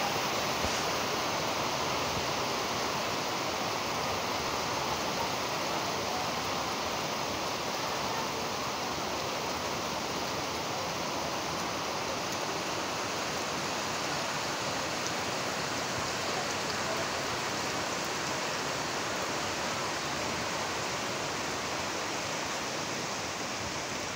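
Heavy rain falling in a steady, even downpour, a dense hiss that holds without a break.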